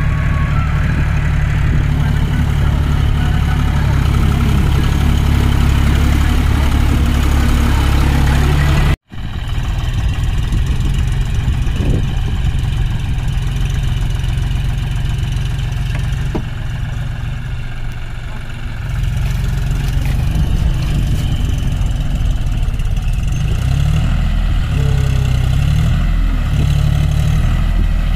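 Tractor diesel engine running steadily. The sound breaks off for an instant about 9 seconds in, then the engine runs quieter for a while before getting louder again, its pitch stepping up and down near the end as it strains to pull a rotavator stuck in mud on a chain.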